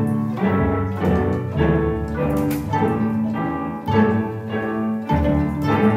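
Student string orchestra of violins, violas, cello and double bass playing a lively tune in quick, short notes.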